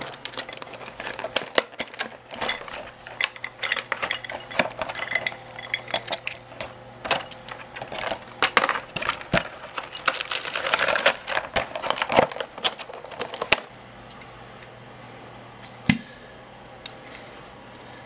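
A plastic clamshell package being handled and opened, with the metal parts and keys of a deadbolt lock clinking against each other. The clicks and rattles come thick for the first two-thirds. After that it is quieter, apart from a single knock.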